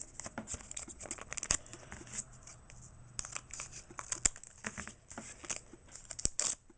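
Foil wrapper of a Pokémon booster pack being torn open and crinkled by hand: an irregular run of sharp crackles and rustles.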